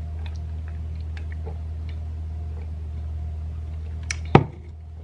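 Steady low hum with faint scattered clicks, and a cup set down with a single sharp knock about four seconds in.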